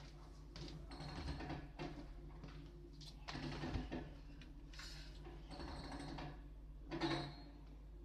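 JCB backhoe loader's diesel engine running steadily, with irregular clattering and crunching of brickwork as its bucket works against a broken brick wall; the loudest crashes come a little under four seconds in and again about seven seconds in.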